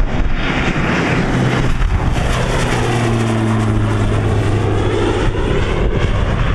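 Single-engine turboprop airplane, a Pilatus PC-12, passing close overhead and climbing away: a loud, steady drone of turbine and propeller.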